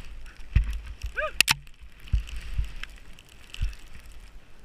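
Skis running through deep powder snow: a steady swishing hiss with soft low thumps from the turns. About a second in there is a short rising-and-falling call, followed at once by a sharp click.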